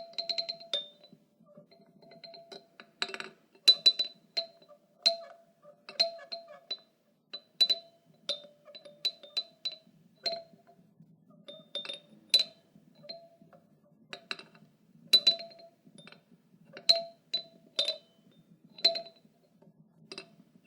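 An old children's toy clinking and clanking: irregular light strikes, each ringing briefly at the same two pitches, one high and one lower, coming singly or in quick clusters with short gaps between.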